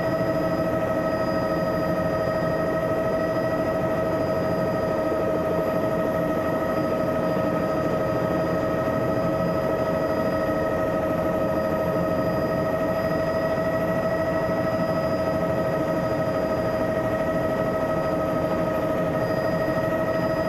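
Bell 206 JetRanger helicopter heard from inside the cabin during takeoff: the Allison 250 turboshaft's steady whine, several high tones held constant over the rumble of engine and rotor.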